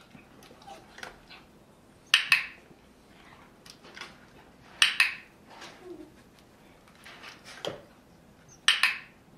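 Dog-training clicker clicked three times, each a sharp double click from pressing and releasing it, with fainter small ticks between. Each click marks the dog's sit as earning a treat.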